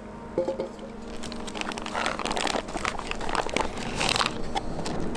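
Crinkling and rustling of a food packet being handled and opened: irregular clicks and crackles that grow busier after about a second and a half, over a faint steady hum.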